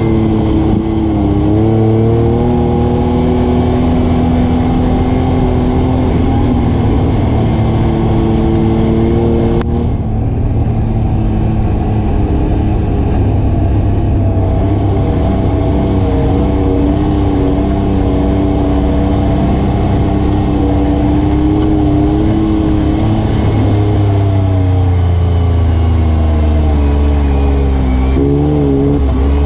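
ATV engine running under way, its pitch rising and falling with the throttle, with a brief break about a third of the way through and the pitch dropping near the end.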